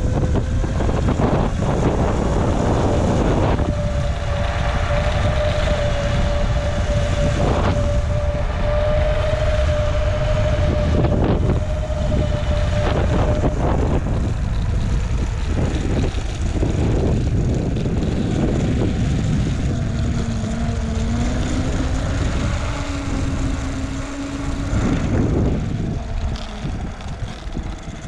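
Wind rushing over the microphone and tyre noise from riding down a paved road at speed. A steady high squeal runs for about ten seconds and a lower one comes in later. The noise fades near the end as the ride slows.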